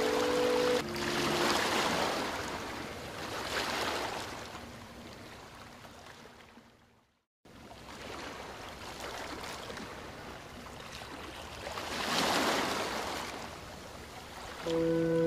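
Water rushing and sloshing in slow surges, the later part picked up on an underwater camera. The sound cuts out briefly about halfway through.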